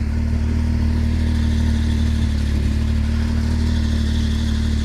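Can-Am Maverick X3 turbo side-by-side's three-cylinder engine running at a steady idle.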